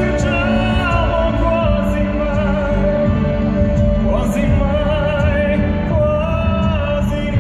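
Live orchestral ballad music from a concert stage, recorded from the audience: a slow, sustained melody of long held notes with vibrato over full orchestral accompaniment.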